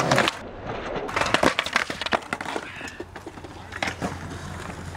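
A skateboard slamming onto a steel handrail and concrete as the skater bails, a loud hit at the start followed by a run of sharp clattering knocks as the loose board tumbles across the concrete. It is a bad slam in which the skater broke his leg.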